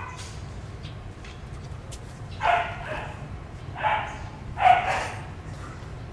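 Baby macaque giving three short, high-pitched cries while it feeds from a milk bottle, about two and a half, four and nearly five seconds in.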